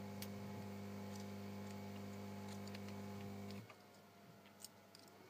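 Faint small clicks and ticks of metal tweezers and fingertips handling a smartphone's flex-cable connector as it is plugged into the board. Under them runs a steady low electrical hum that cuts off abruptly about three and a half seconds in.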